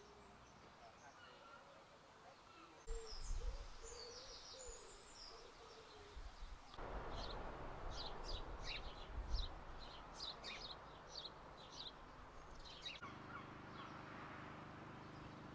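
Birds calling in a park: short low hooting coos in the first few seconds, then a run of quick high chirps, about two a second, through the middle. Low rumbling bursts come and go on the microphone, and a steady low hum comes in near the end.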